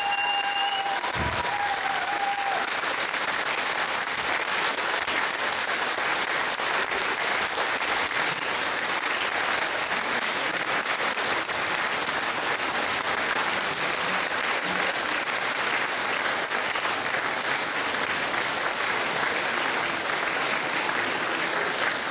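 Audience applauding, dense and steady without a break. A held musical note dies away in the first two seconds.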